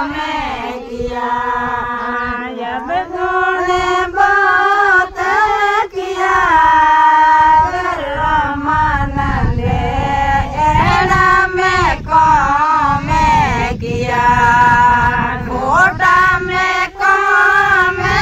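Group of women singing a Rajasthani harjas, a devotional folk song, in long held, wavering lines with short breaks between phrases.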